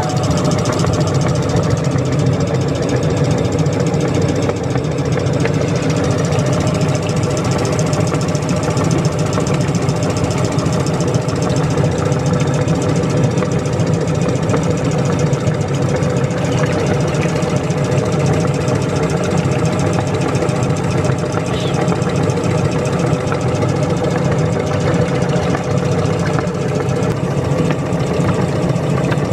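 Meat grinder's motor running steadily under load.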